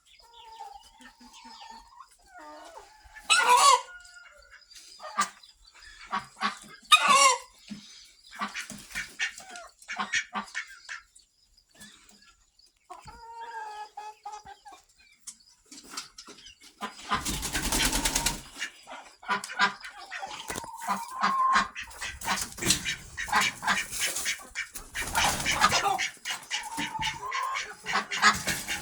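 A flock of barn chickens clucking and squawking, many short calls, with two loud cries about three and seven seconds in. The second half adds bursts of scratchy, rustling noise among the calls.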